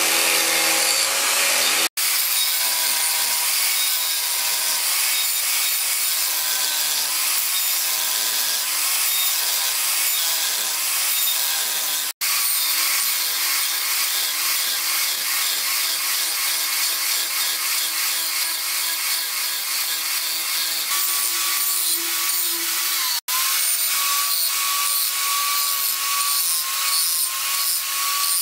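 Electric grinder grinding a coil-spring steel knife blank: a steady motor whine under a dense hissing grind, its pitch wavering slightly as the load changes. The sound drops out abruptly three times, for a moment each.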